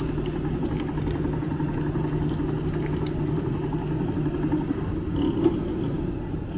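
Busy night-market street ambience: a steady low engine hum with light clatter. The hum fades about three-quarters of the way through, and there is a brief knock near the end.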